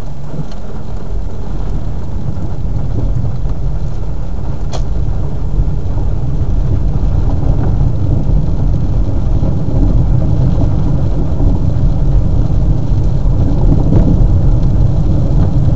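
Car driving on a wet road, heard from inside the cabin: a steady low engine and road rumble that grows gradually louder as the car gathers speed.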